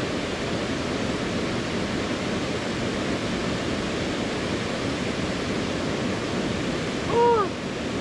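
Steady rushing of a mountain stream pouring over waterfalls and cascades. A short voice call breaks in near the end.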